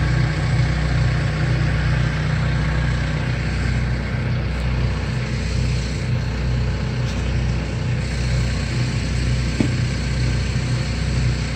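Tractor engine running steadily under load as it pulls a cabbage transplanter across the field, a continuous low drone.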